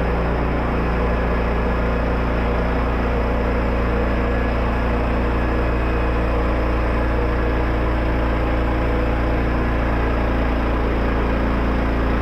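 An engine running steadily at an even speed, a constant drone with a low hum.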